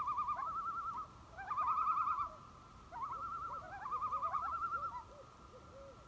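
Common loons giving tremolo calls: rapid wavering quavers in several overlapping bursts, then a few softer, lower notes about five seconds in.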